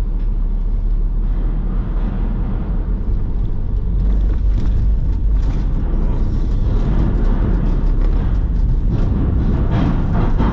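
Steady low rumble of a car's engine and tyres heard from inside the cabin as it drives off a ferry's vehicle deck and down the loading ramp, with a few faint knocks about halfway through and again near the end.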